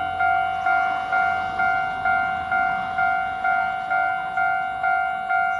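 A bell-like tone repeating about twice a second, each note starting sharply and fading away, like a crossing bell or an electronic alarm chime.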